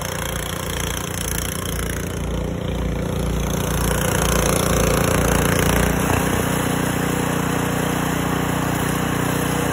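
Snowblower's small gasoline engine running steadily, its sound shifting slightly about six seconds in.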